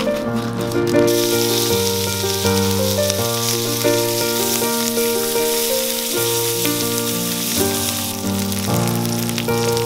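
Asparagus spears sizzling in hot oil in a cast-iron frying pan. The sizzle starts about a second in and runs steadily under background music.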